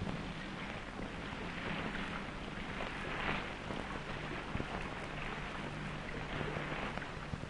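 Rushing wash of wind and sea that swells and eases every couple of seconds, over a low steady hum.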